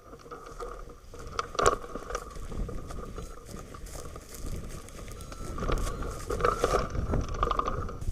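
Strong wind rushing and buffeting over the microphone of a hang glider in flight, swelling louder in the last couple of seconds, with a sharp knock about a second and a half in and a steady thin tone running through.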